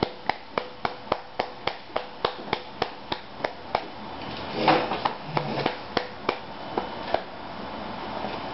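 Quick, even footsteps on a tiled floor, about three or four a second, that slow to a few scattered steps about halfway through.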